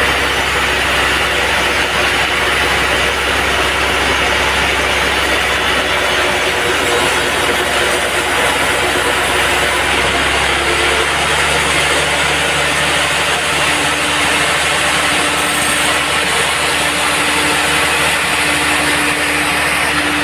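Band sawmill running: a steady, loud machine noise with a hiss over a low hum, whose hum changes pitch about eleven seconds in.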